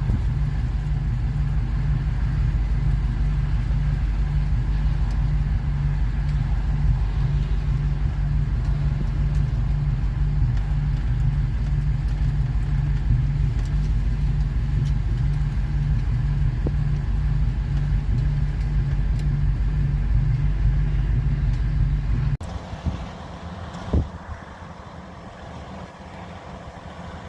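Strong wind buffeting the microphone: a heavy, steady low rumble. About 22 seconds in it stops abruptly, leaving quieter outdoor noise with a single knock shortly after.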